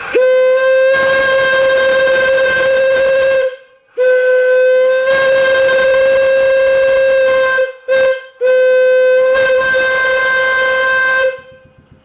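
A repaired steam whistle blown on compressed air by its pull cord: three long blasts of about three seconds each, with a brief toot between the second and third, all on one clear steady note. It sounds good, working properly after the repair.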